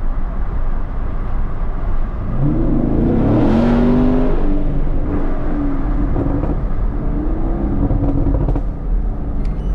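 A 2021 Camaro SS's 6.2-litre V8 under acceleration: the exhaust note climbs in pitch about two seconds in, then holds steady at a constant speed.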